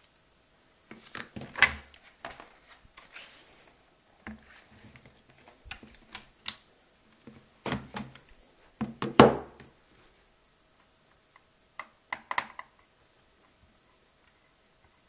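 Clicks, knocks and light scraping as a Dell Inspiron N5010 laptop is handled, in several short clusters with gaps between them. The loudest is a knock about nine seconds in.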